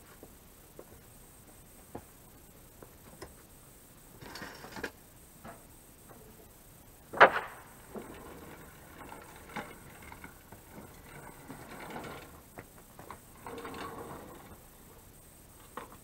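Scattered knocks, clanks and scuffs as a chainsaw mill is handled and pulled back along the log, with the chainsaw not running. A single sharp knock about seven seconds in is the loudest sound.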